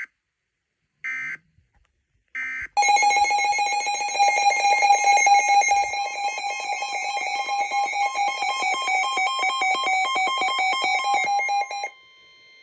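Emergency Alert System broadcast signals: three short electronic data bursts about a second apart, the SAME end-of-message code closing a weather warning. Then a loud, steady, buzzy multi-tone attention signal sounds for about nine seconds and cuts off suddenly.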